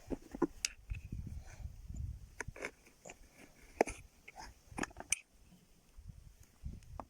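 Irregular clicks, clinks and knocks of steering-rack parts being handled and moved during disassembly, with low rubbing and thudding handling noise in the first couple of seconds and again near the end.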